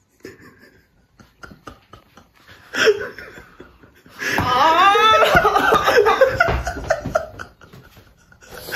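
A young man laughing: a short outburst about three seconds in, then a long, loud fit of laughter lasting some three seconds.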